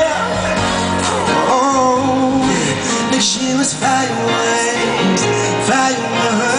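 Pop song playing: a sung melody over instrumental backing.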